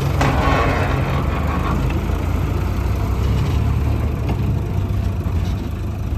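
Heavy diesel engine running steadily at a low, even pitch. A harsher rushing noise rides over it for the first two seconds or so.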